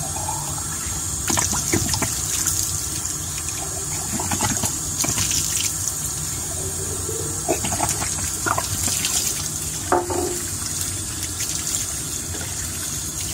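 Tap water running into and over a glass laboratory bottle as it is rinsed out in a sink, a steady splashing hiss with a few brief knocks.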